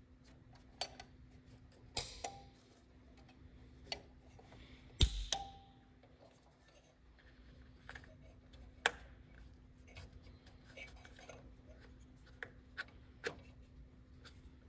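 Scattered clicks and light knocks of a new distributor cap being fitted onto a Ford Model A distributor and its centre wire pushed in, with the loudest knock about five seconds in. A faint steady hum runs underneath.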